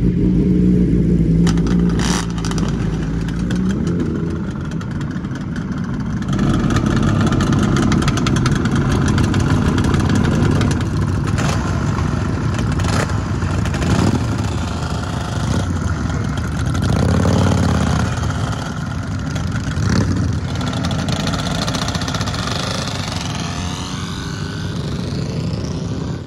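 Yamaha RD350 two-stroke parallel-twin engine in a Lambretta scooter, running through its twin exhausts. It runs steadily at first, then from about six seconds in it is revved repeatedly with throttle blips that rise and fall.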